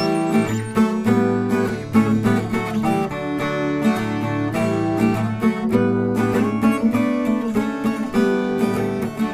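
Background music: acoustic guitar being plucked and strummed at a steady pace.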